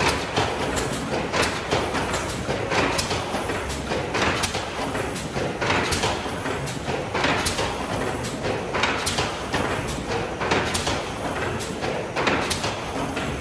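Steam mill engine running, with a whooshing, knocking beat about every second and a half.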